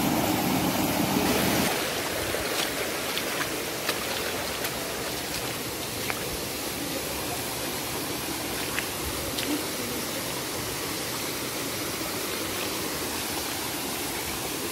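Muddy river water rushing over rocks, loud and deep at first. About two seconds in it changes to a steadier, higher hiss of flowing water, with a few faint clicks.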